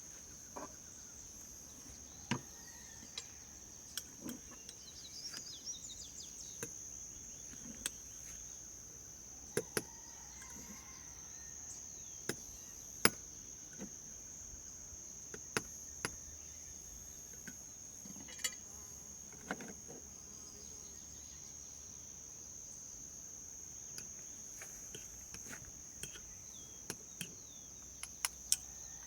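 Steady high-pitched chirring of crickets, with scattered light clicks and taps of a spoon against a bowl as grated mozzarella and basil are mixed.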